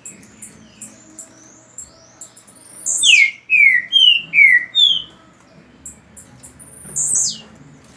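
Birds calling: a run of short high chirps, broken about three seconds in by four loud calls that each slide down in pitch, and one more such call near the end.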